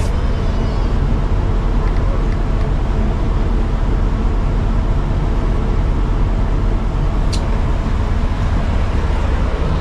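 Steady low hum of an ice cream van's engine running at idle, with a single short click about seven seconds in.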